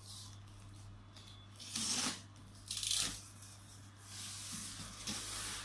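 Packing tape on a cardboard box being slit with a box cutter and ripped open: two short rips about two and three seconds in, then a longer stretch of cardboard sliding and rubbing as the box is opened.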